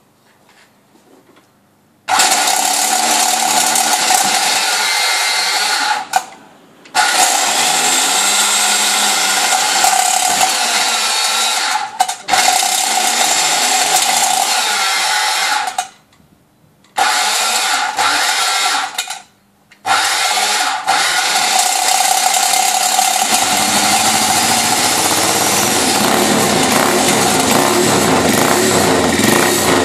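Electric roller starter spinning the rear wheel of a 1966 Lito ex-cam motocross bike to turn its engine over: a loud steady whine in several long runs with brief stops. About 23 seconds in a lower, rougher engine sound joins it as the engine begins to fire.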